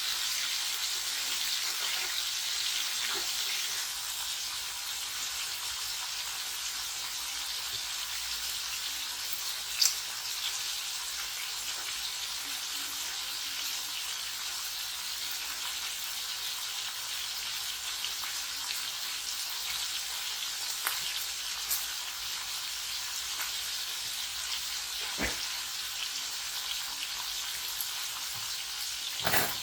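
Food frying in hot oil in a pan: a steady sizzle, a little louder in the first few seconds, broken by a few sharp clicks, the loudest near the end.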